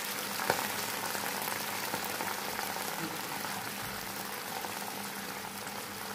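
Water boiling in a frying pan over hot oil with green chillies and curry leaves, a steady bubbling fizz: the tempering water for dhokla at the boil. A single click about half a second in.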